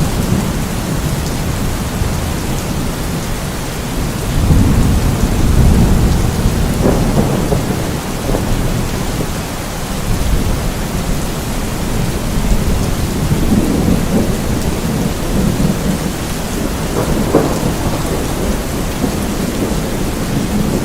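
Steady heavy rain with low, rolling thunder that swells and fades several times.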